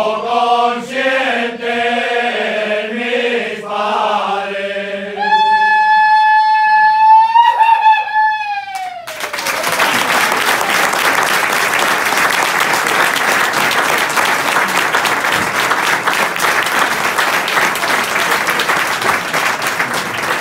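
A men's ronda sings a cappella, ending on one long high held note that falls away at its close. The audience applauds from about nine seconds in.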